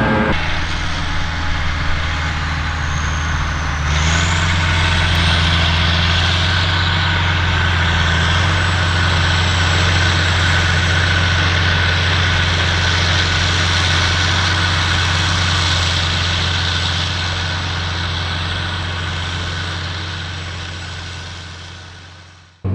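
A heavy engine running steadily with a low drone. It fades out over the last few seconds.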